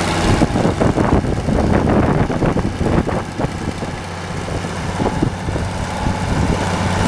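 International Hydro 100 tractor's six-cylinder diesel engine idling steadily, with irregular bumps and rustling noise over it for the first few seconds.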